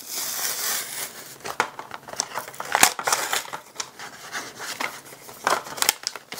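Paper and foam layers of a cardboard greeting-card case being torn and pried apart by hand: irregular ripping and crinkling with sharp cracks here and there.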